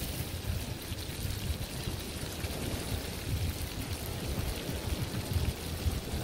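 Wind rumbling and buffeting on the microphone over a steady hiss.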